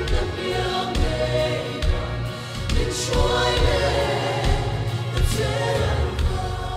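Mixed choir of men's and women's voices singing a hymn in Mizo, in parts.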